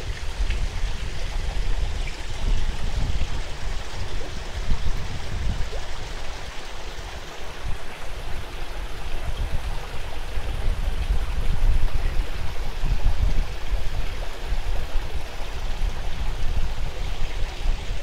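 Small waterfall spout trickling into a garden koi pond, with strong wind gusting against the microphone as an uneven low rumble.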